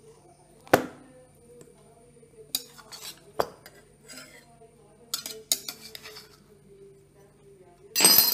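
Metal knife clinking and scraping against a steel plate while cutting a steamed rice cake into pieces. There are a handful of sharp, separate clinks, the loudest about a second in, and a short, louder clatter near the end.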